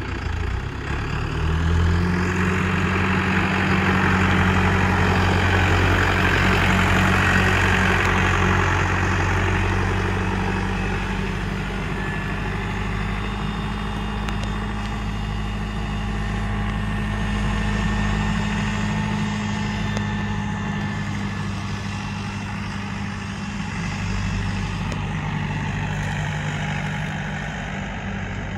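Challenger farm tractor's diesel engine running as the tractor pulls away and drives up a gravel track. Its pitch rises about a second in as it picks up speed, holds steady, and dips for a couple of seconds near the end.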